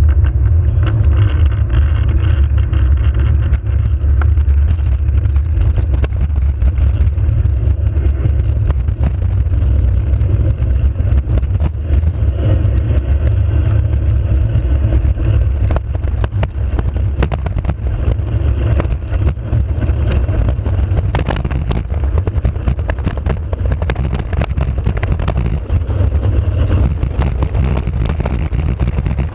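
Engineless soapbox cart rolling fast downhill on asphalt: a steady low rumble from its wheels and from wind on the microphone, with frequent rattles and knocks from bumps in the road that grow more frequent in the second half.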